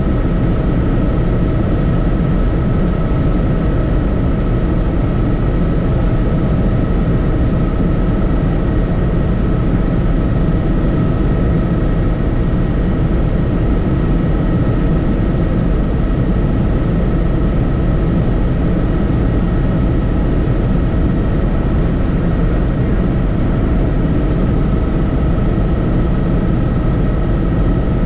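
Helicopter in flight: steady engine and rotor noise with a thin, constant whine over it.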